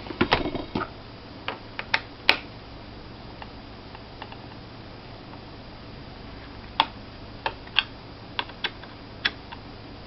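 Small Phillips screwdriver loosening the screws of the hard drive cover on the underside of a Toshiba Satellite laptop: light scattered clicks and taps of metal on the screws and plastic panel. A cluster of clicks in the first couple of seconds, a pause, then several more single clicks near the end.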